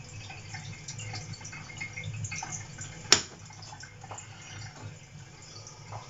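A knife cutting and moving slices of king bolete (porcini) mushroom on a cutting board: scattered small clicks and scrapes, with one sharp knock about three seconds in.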